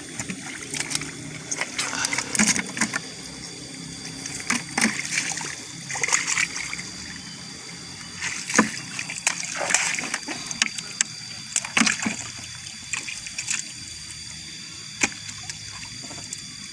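Shallow water splashing and sloshing in short, irregular bursts as hands work through it, with a steady trickle in between.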